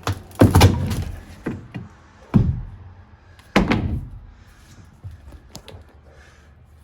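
Heavy, hollow thunks of wooden boat floor decking being lifted out and set down: four loud knocks, the loudest about half a second in, followed by a few light taps.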